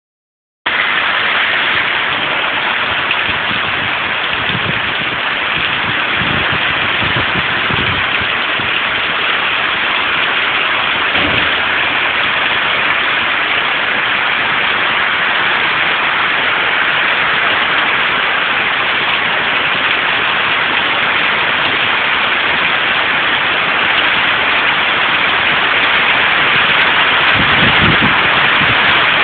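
Steady downpour of rain, an even hiss with a few dull low thuds.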